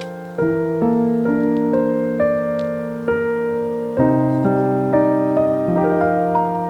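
Background music: a gentle piano piece, notes struck about every half second with sustained chords.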